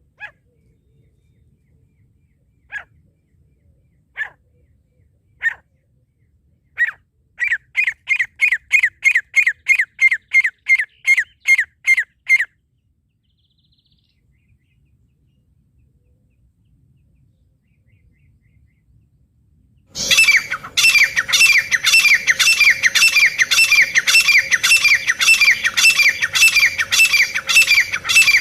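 Francolin calls used as a catching lure: a few single calls spaced a second or more apart, then a quick run of repeated notes, about three a second, for some five seconds. After a pause of several seconds comes a louder, denser run of repeated calls with a steady hum underneath.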